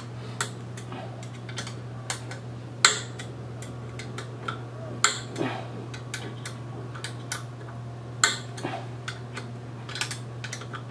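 Irregular sharp metal clicks and taps from a paramotor's propeller hub bolts being snugged down by hand with a tool, with a few louder knocks among them, over a steady low hum.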